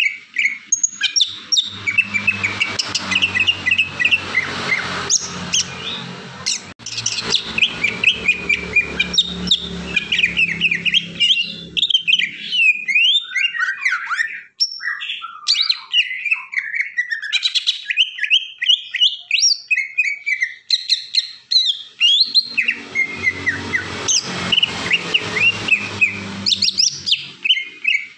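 Cucak ijo (green leafbird) singing in an excited, aggressive burst: fast, varied chirps and whistled glides, one phrase after another. A steady low hum runs beneath the song for about the first twelve seconds and again near the end.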